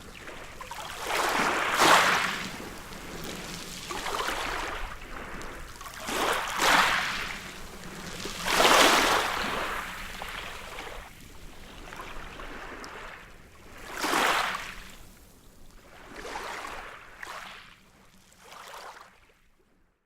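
Sea waves breaking and washing up on a beach, one surge of surf every few seconds, growing weaker and fading out near the end.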